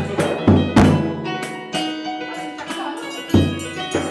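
Live band music in an instrumental passage between sung lines: strong drum hits at irregular intervals under held pitched notes from the instruments.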